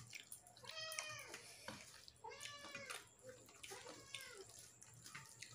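A cat meowing repeatedly, about four faint meows in a row, each call rising and then falling in pitch.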